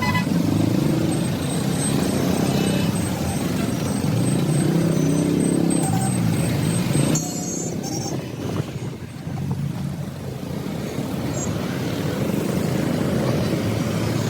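A motor vehicle's engine running, its pitch wavering up and down, with an abrupt change in the sound about seven seconds in.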